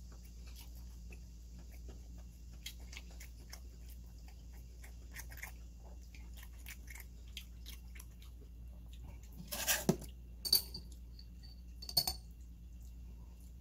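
Close-up chewing of gimbap, with small wet mouth clicks. Near the end, metal chopsticks clatter against the tin lunch box and then clink twice, ringing, against a glass jar.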